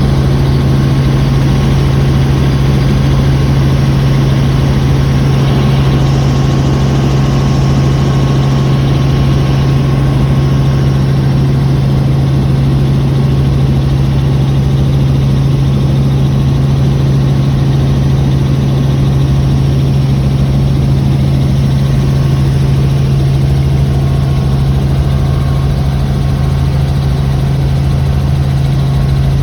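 Helicopter running steadily: a loud, even drone of engine and rotor with a strong low hum that holds unchanged.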